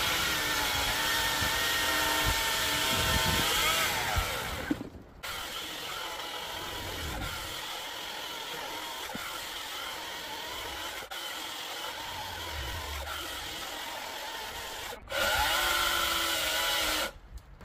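Ego CSX5000 battery chainsaw with a 24-inch bar and 3/8 skip chain cutting through a large log with the load pegged. Its electric motor whines steadily under the load. The sound breaks off abruptly twice, with a quieter stretch between, and the whine rises again near the end before stopping suddenly.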